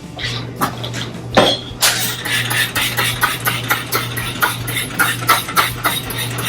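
Hand scrubbing a greasy kitchen surface, wiping it down: a few knocks, then quick, even rubbing strokes of about four to five a second from about two seconds in. A steady low hum runs underneath.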